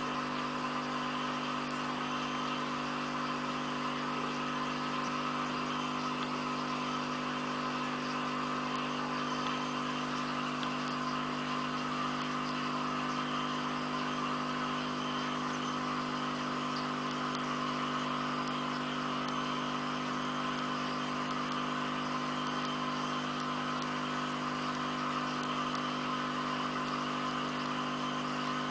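Aquarium equipment humming steadily, a constant motor-like drone with several held tones and an even hiss over it.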